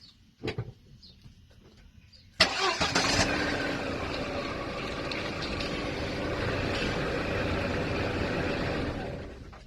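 A machine starts abruptly and runs steadily for about seven seconds, then dies away near the end.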